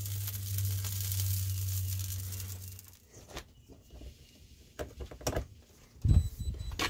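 A steady electrical hum with a sizzling hiss from inside an electric smoker cooking a pork shoulder, cutting off about three seconds in. Then a few sharp clicks as the toggle latch on a Masterbuilt electric smoker's door is worked, and heavy low thumps near the end.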